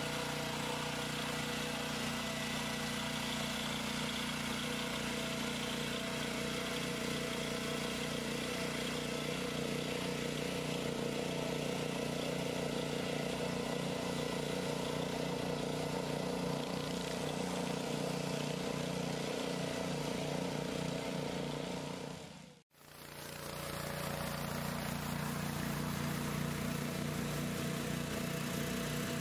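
BCS 740 two-wheel tractor's engine running steadily while it clears snow. The sound drops out for a moment about three-quarters of the way through, then carries on.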